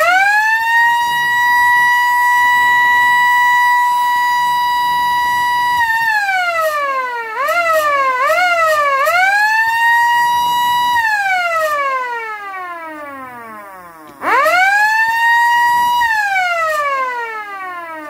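Kleinsirene MS 3 small electric motor siren spinning up fast to a steady, high single-pitch wail, held for about six seconds, then winding down. It is switched on in three quick bursts so the pitch wavers up and down, runs back up to full pitch and winds down slowly. Near the end it spins up sharply once more and falls away.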